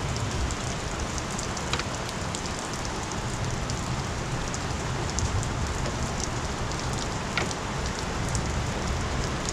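Steady rain on a garage roof: an even hiss broken by scattered sharp drop ticks.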